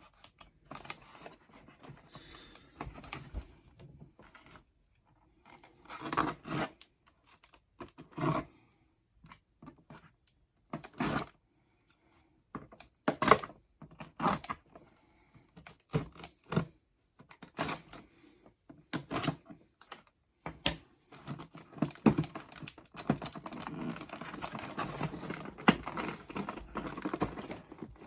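Hands working at a toy's cardboard box and plastic packaging: irregular clicks, scrapes and tearing sounds with short pauses, turning into a denser crinkling rustle over the last several seconds.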